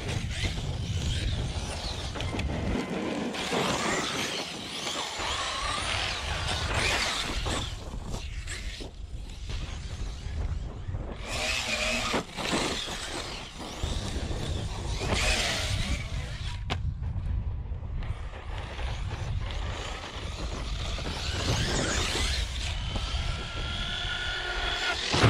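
Large 6S electric RC truck being driven hard over dirt and grass. Its motor whines up and down with the throttle, with a rising whine near the end. Wind rumbles steadily on the microphone.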